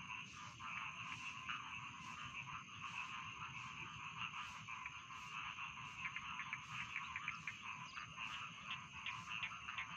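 A chorus of rice-paddy frogs calling, a dense din of many short overlapping croaks that thickens in the second half, with a steady high thin tone above it.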